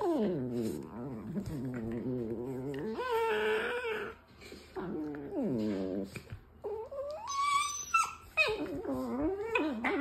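A dog making a string of drawn-out whining vocal sounds that wobble and glide up and down in pitch, with short breaks between calls.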